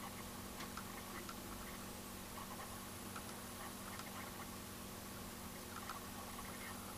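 Faint indoor room tone: a steady low hum with scattered small clicks and ticks.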